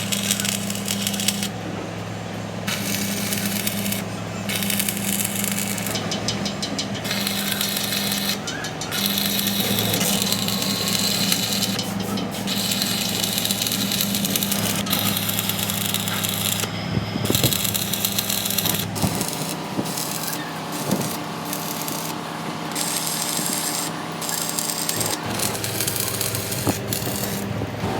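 Stick (arc) welding on an excavator bucket: a steady crackling, frying arc that breaks off briefly several times as the rod is struck again, over the steady hum of the welding machine, which stops about two-thirds of the way through.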